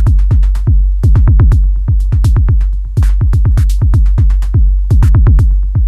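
Electronic dance background music: a fast drum-machine beat with sharp hi-hat ticks over a deep, heavy bass, with quick falling bass notes.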